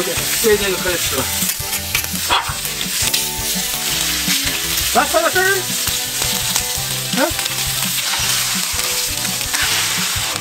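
Stuffed squid skewers frying on a hot flat-top griddle: a steady sizzling hiss. A few short pitched cries sound over it, the clearest about five seconds in.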